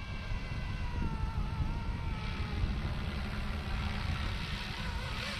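FlyWing FW450 electric RC helicopter in flight, its motor and rotor whine faint and wavering slightly in pitch, fading after about two and a half seconds, over a steady low rumble.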